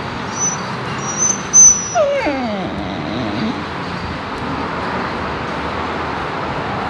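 Dog whimpering briefly: a few short high squeaks about a second in, then lower whines that fall in pitch, over a steady background hiss.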